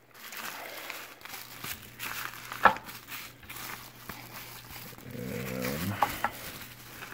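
Plastic bubble-wrap packaging rustling and crinkling as it is handled, with scattered small clicks and one sharp snap nearly three seconds in. About five seconds in comes a brief low, wavering pitched groan.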